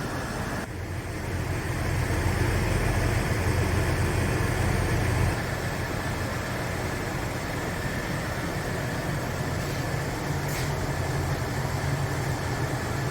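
A motor vehicle's engine running steadily with a low rumble. It swells for the first few seconds, then drops a step about five seconds in and carries on lower.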